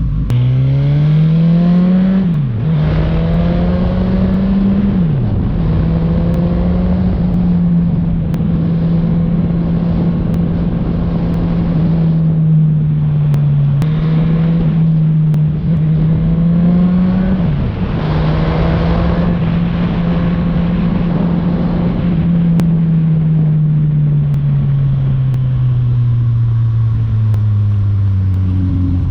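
Suzuki Katana motorcycle with an Orion aftermarket exhaust, under way. Its engine note climbs and drops sharply at upshifts about two and a half and five seconds in, and again near seventeen seconds. In between it holds a steady cruise, and over the last several seconds it sinks slowly in pitch as the bike slows.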